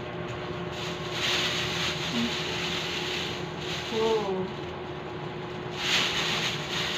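Thin plastic bag around a computer case rustling and crinkling as it is pulled open and off, in two spells, with a brief voice sound about four seconds in.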